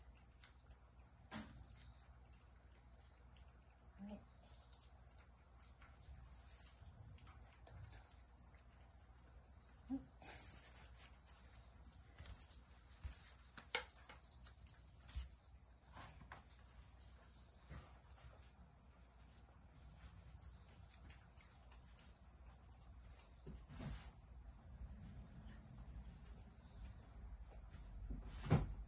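Insects chirring in a steady, high-pitched chorus, with faint scattered clicks as a cat eats from its bowl.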